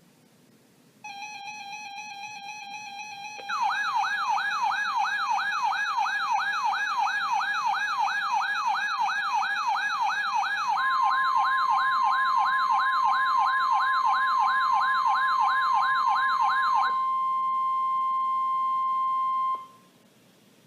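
Weather radio emergency alert tones: a steady electronic tone starts about a second in, then a warbling siren tone sweeping up and down about three times a second sounds loudly over it. Partway through, the steady 1050 Hz warning alarm tone of NOAA Weather Radio joins in, and after the warble stops it carries on alone before cutting off suddenly.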